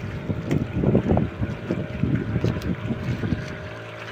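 Wind buffeting the microphone over the steady drone of the towing boat's engine, which pulls this boat along after its own engine has failed.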